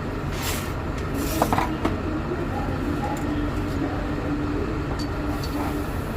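Metal clicks and scrapes of a wrench loosening the crown-wheel adjuster lock on a truck-type bus differential carrier, with two short hissing bursts early on. A steady low rumble runs underneath.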